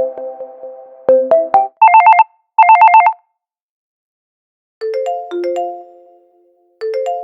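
Phone ringtones played one after another. A short melody of plucked, decaying notes ends about a second and a half in. Then comes a classic electronic telephone ring: two short bursts of a fast trill, about twelve pulses a second. After a pause of about a second and a half, another melodic ringtone of held, fading notes begins.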